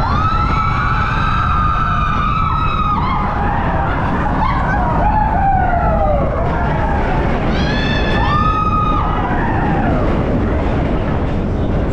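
Roller coaster riders screaming over the steady rumble of the Expedition Everest train on its track: one long high scream at the start, a falling cry around the middle, and a shorter high scream near the end.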